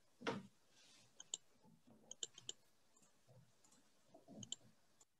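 Faint, sharp clicks in small groups, with a soft knock near the start and another near the end, over quiet room tone.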